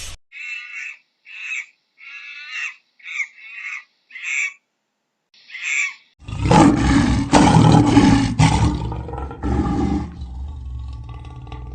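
About seven short, high-pitched calls with silent gaps between them. Then, from about six seconds in, a big cat roars: loud and deep, in several pulses, tailing off near the end.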